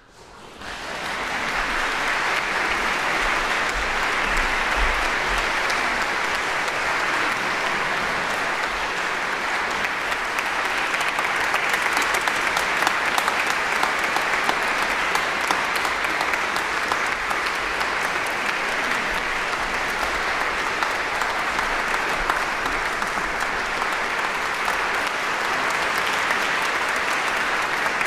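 Audience applause breaking out after silence, swelling within about a second and then holding steady.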